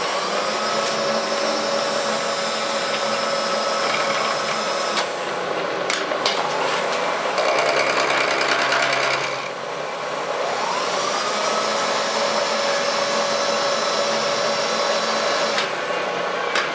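Milling machine running and cutting metal on a cast-iron vise part, a steady mechanical whine and cutting noise. A tone rises as the machine speeds up just after the start and again about ten seconds in, and the sound changes for a couple of seconds in the middle.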